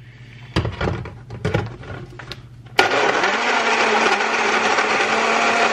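A few clicks and knocks as the blender cup is handled and fitted to its base. About three seconds in, a personal blender's motor starts suddenly and runs steadily, its pitch rising a little as it gets up to speed, blending a smoothie of frozen fruit and nuts.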